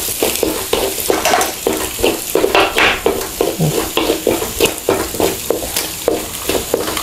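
Sausages sizzling in oil in an aluminium wok, with a wooden spatula scraping and stirring against the pan in quick repeated strokes.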